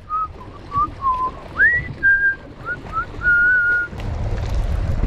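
A person whistling a tune in short clear notes, some sliding upward and some held steady. About four seconds in the whistling stops and a low rumble comes up.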